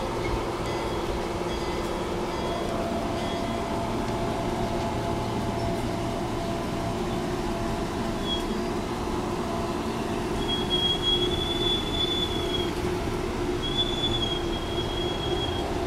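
Amtrak passenger coaches rolling by, a steady rumble of wheels on rail. From about ten seconds in, high thin wheel squeals come and go several times.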